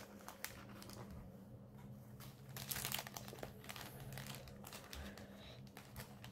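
Faint crinkling and rustling as embroidery thread skeins are handled, with scattered small clicks and a slightly busier flurry about three seconds in.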